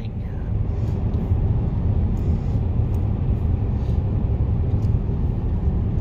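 Steady low rumble of a car driving along a snow-covered highway, heard from inside the cabin: tyre and road noise with the engine underneath.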